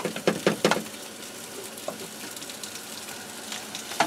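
Scrambled eggs sizzling in a frying pan on a propane grill, with a spatula scraping and stirring the pan a few times in the first second.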